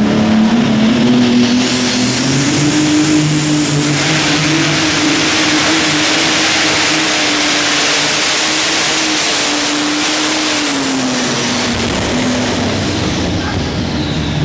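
Twin engines of an unlimited-class pulling tractor running flat out through a pull: one loud, steady engine note that climbs a little in pitch about two seconds in and holds, then drops and eases off near the end.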